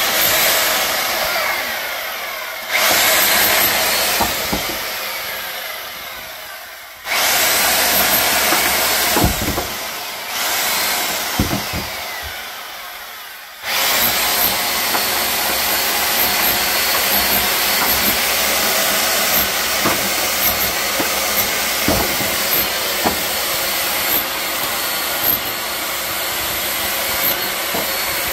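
Loud power tool running in long stretches. It cuts in sharply and then tails off, restarting about 3, 7 and 14 seconds in, and runs steadily through the second half.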